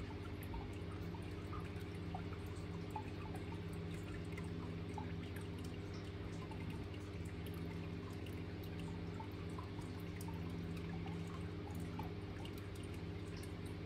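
Steady low electrical hum with faint, scattered small ticks.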